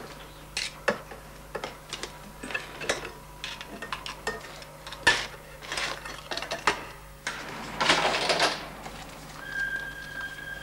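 Metal cutlery clinking and scraping against an aluminium cooking pot: scattered clinks and knocks, with a longer scraping rattle about eight seconds in. A steady high tone starts near the end.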